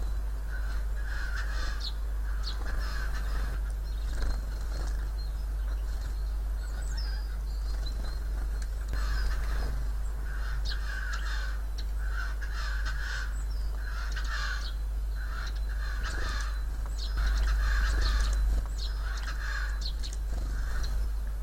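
Siberian jay giving a run of short, hoarse, cough-like calls in imitation of a human cough. A few calls come first, then a pause of several seconds, then a quick string of them.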